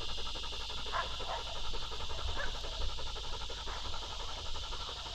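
Decoy dog panting fast and steadily, close by, winded from chasing coyotes.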